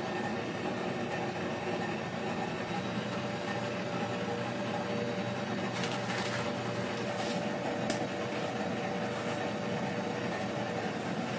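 Steady mechanical hum of kitchen equipment, like a fan or refrigeration unit, with a few light clicks about six to eight seconds in.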